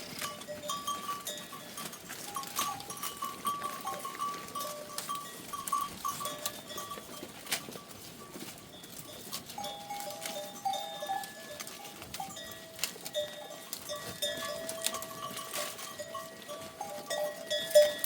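A herd of goats wearing bells, the bells ringing and clinking on and off as the animals move, with scattered sharp clicks.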